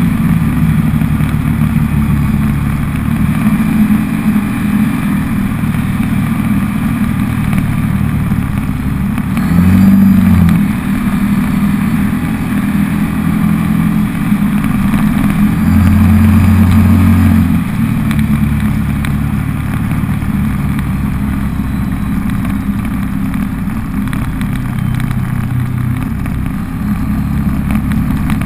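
Can-Am Maverick side-by-side's Rotax V-twin engine running under way, its pitch rising and falling with the throttle. A short burst of revs comes about a third of the way through, and a louder steady pull a little past the middle.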